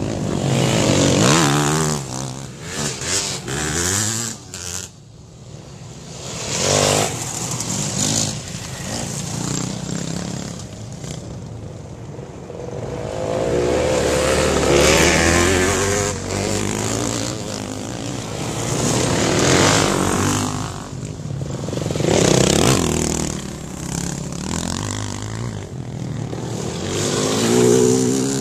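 Off-road dirt bike engines revving hard as a string of bikes races past close by, one after another. Each pass swells and fades, with the engine pitch gliding up and down as riders work the throttle through the corner.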